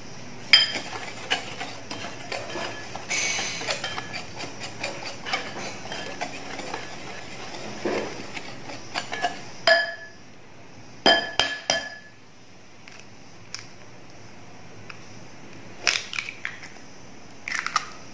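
Wire whisk stirring a dry flour and sugar mix in a glass bowl, with light scraping and clinking of the wires against the glass. After about ten seconds the stirring stops and only a few sharp, ringing taps on the bowl remain.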